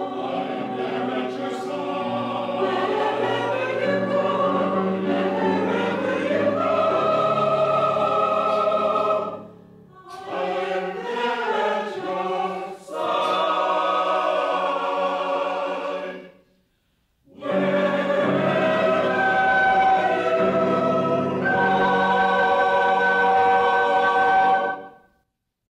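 A choir singing a hymn in long held phrases, with brief breaks between phrases; the singing ends shortly before the close.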